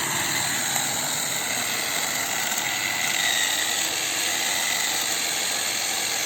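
Electric drill driving a homemade grass-trimmer head, running steadily with a faint high whine over the motor noise.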